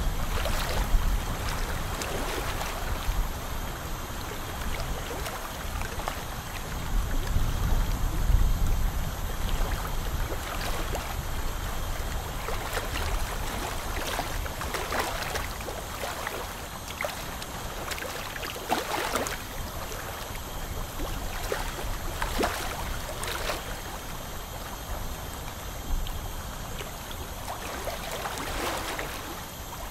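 Dental suction gurgling and slurping the water spray from an ultrasonic scaler as it scales tartar off the lower front teeth.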